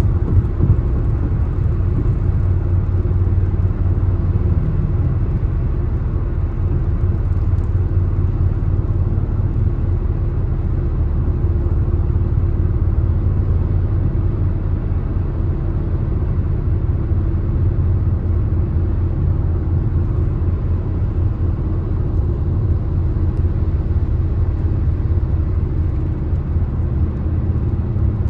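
Steady low rumble of a car cruising at highway speed, road and driving noise heaviest in the deep bass and unchanging throughout.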